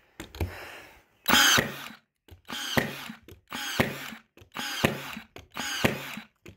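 Ryobi AirStrike battery-powered nailer firing nails into wooden boards, about six shots roughly one a second. Each shot is a short motor whir ending in a sharp snap.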